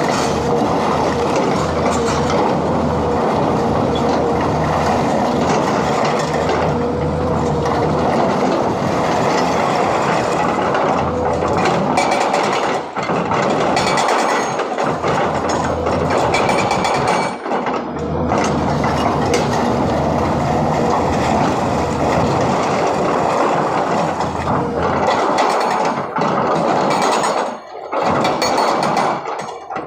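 Hydraulic rock breaker on a SANY 210 excavator hammering rock in a rapid, steady rattle, pausing briefly a few times, most clearly near the end.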